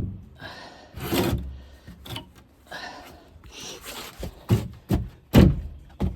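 A cut wooden piece being worked into place by hand: short scraping and rubbing of wood against wood, then a few sharp knocks, the loudest about five seconds in.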